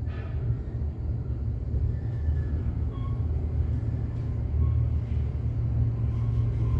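Otis traction elevator car riding up, heard from inside the cab as a steady low rumble that builds over the first second and then holds.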